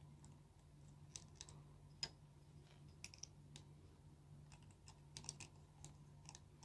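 Faint, scattered plastic clicks and taps as parts on the head of a Sevenger robot toy are taken off and fitted back by hand.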